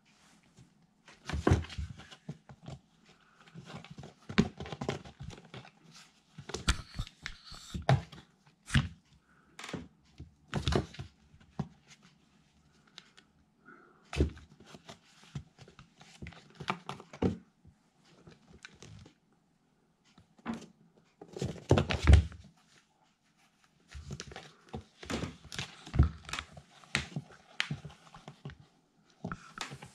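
Kittens scuffling in and against a cardboard box house: irregular clusters of thumps and knocks as paws swat and bodies bump the cardboard and the floor mat, with quiet gaps between bouts.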